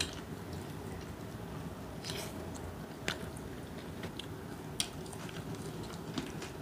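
Fried chicken being bitten and chewed, with a sharp crunch every second or two.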